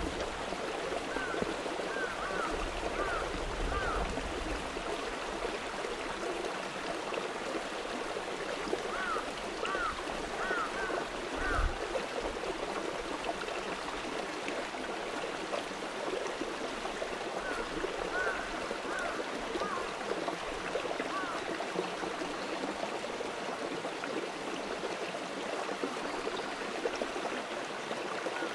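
Steady rush of running water, with short high chirps coming in three brief runs and one dull thump a little before halfway.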